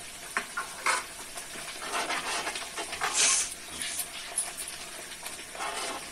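Wet masala paste sizzling in a kadai while a metal ladle slowly stirs it, scraping and clicking against the pan, with a brief sharper hiss about three seconds in.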